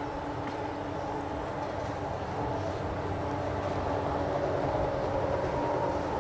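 Electric bike's motor whining steadily at cruising speed, over the rumble of wind on the microphone and tyres on pavement; it grows a little louder about halfway through.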